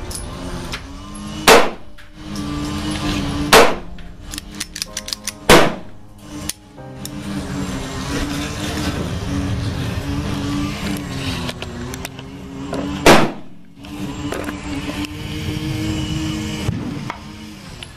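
Single gunshots from a Lionheart LH9 9mm pistol: three shots about two seconds apart in the first six seconds, and one more shot about thirteen seconds in. Background music plays steadily underneath.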